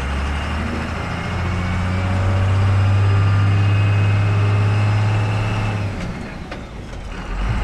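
12-valve Cummins 5.9 L inline-six turbo diesel pulling a truck away from a stop and up a hill, heard inside the cab. The engine's pitch climbs only slowly because the truck is badly down on power. About six seconds in the engine note drops away, and it picks up again near the end.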